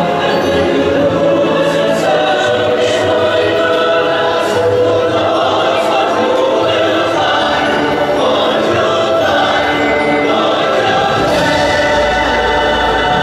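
Show music with a choir singing, played over large outdoor loudspeakers.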